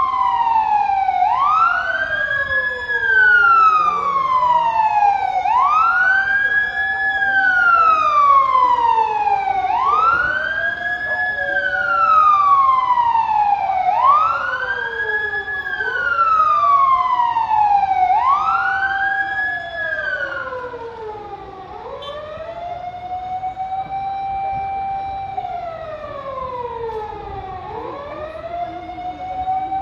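Two emergency-vehicle sirens wailing together, each rising quickly and gliding slowly back down about every four seconds. The louder, higher one fades away about twenty seconds in, leaving the lower one still wailing.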